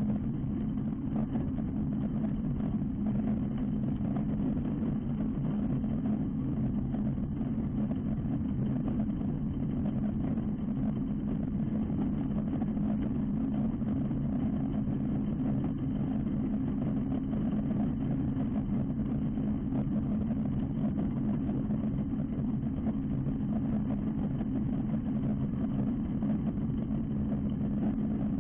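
Ultralight aircraft's engine running at a steady speed, an even drone that does not change.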